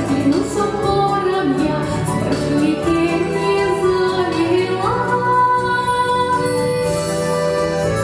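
A woman singing a Russian song in folk style, her melody moving up and down over steady instrumental accompaniment.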